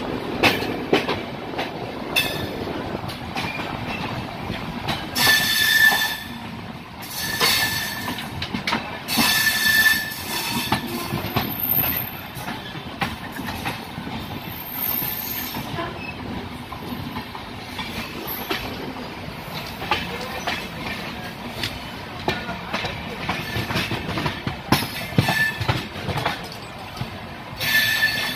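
Express train coaches running on the rails, heard from the coach doorway: a steady rumble with wheels clicking over rail joints and points. Several high metallic wheel squeals come about 5 to 10 seconds in and again near the end, as the train runs toward a station stop.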